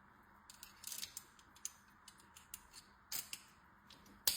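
Small metal parts and tools of a mountain-bike air suspension fork clicking and clinking as it is reassembled by hand: a cluster of light clicks about a second in, scattered ones after, and one sharper click near the end.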